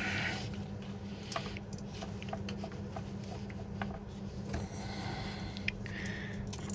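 Small clicks and scraping as the crocodile clips of a battery charger's leads are handled and clamped onto the terminals of a truck battery, over a steady low hum.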